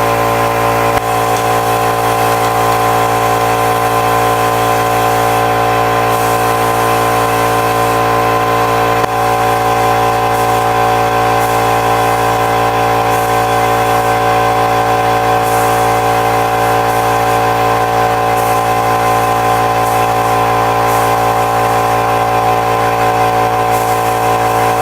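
A motor running steadily at one constant speed, with a hiss over its hum.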